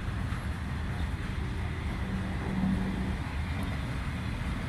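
Freight train of hopper wagons rolling past with a steady low rumble, and a brief low hum about two seconds in.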